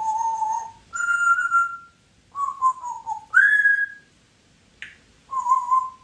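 Congo African grey parrot whistling a string of five short, clear notes at different pitches: some held steady, one falling, and one rising to the highest pitch. A brief click comes between the last two whistles.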